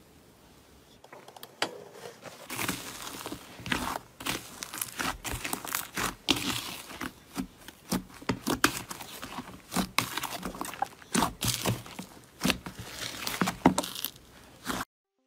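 Thick green slime squeezed and kneaded by hand, giving a dense run of crackling, crinkling pops and sticky tearing sounds as air is pressed out of it. It starts faintly about a second in, grows busy soon after, and cuts off suddenly near the end.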